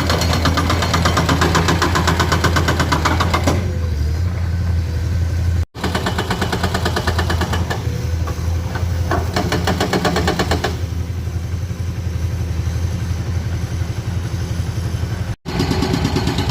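Excavator's diesel engine running steadily with a low hum, overlaid by two spells of fast, even rattling clatter as the machine works. The sound drops out for an instant twice.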